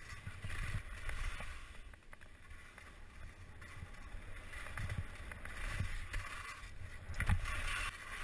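Skis hissing and scraping as they slide over soft spring snow, louder about seven seconds in, with irregular low thumps.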